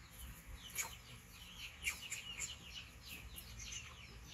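Birds chirping quickly and repeatedly in the background, short high falling notes, with two louder, sharper chirps about one and two seconds in.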